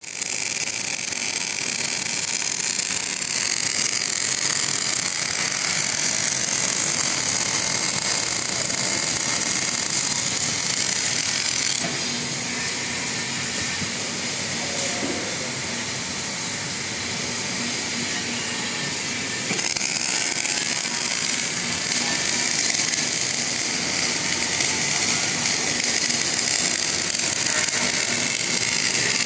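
Arc welding: a steady hiss, a little quieter for several seconds in the middle.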